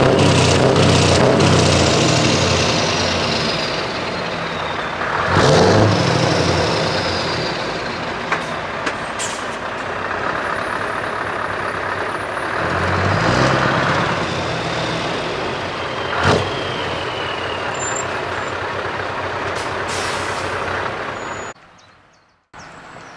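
Scania tractor unit's diesel engine running loudly as the truck drives slowly past and away, with louder surges about five and thirteen seconds in and hisses of air brakes. The sound cuts off briefly near the end.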